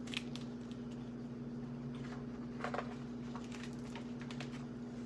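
Faint rustling and light clicks of a hardcover picture book being opened and its pages handled, over a steady low hum.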